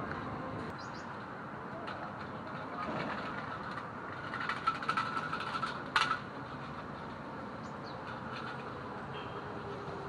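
Steady outdoor city ambience with a constant background rumble. A spell of clattering comes in the middle, ending in one sharp knock about six seconds in.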